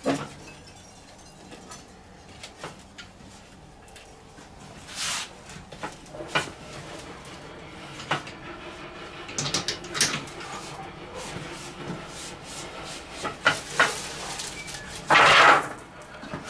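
Wooden folding garden table being unfolded and set up: scattered knocks and clacks of the wooden slatted top and leg frame, with a louder, longer clatter near the end.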